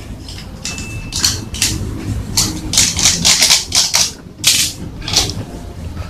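Plastic fruit basket being cut with a heated cutter knife: irregular sharp crackles and snaps of the plastic, thickest in the middle, then a few single snaps.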